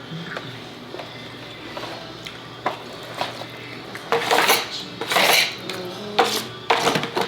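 Dishes and cutlery clattering at a table: a few light clicks, then louder bursts of clatter and scraping in the second half.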